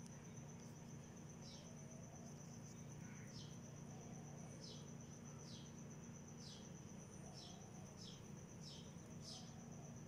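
Faint, steady, high-pitched cricket trill, with short falling chirps every second or so over a low steady hum.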